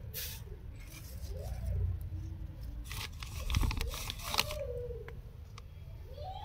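Plastic packet planter crinkling and rustling as a hand presses into it, with a cluster of sharp crackles in the middle. A low rumble of handling noise sits underneath.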